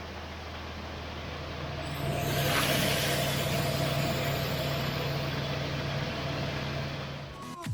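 Engine-driven feed grinder running steadily while grinding corn, with a low hum. About two seconds in, a louder rushing noise swells over the hum as the grinding picks up.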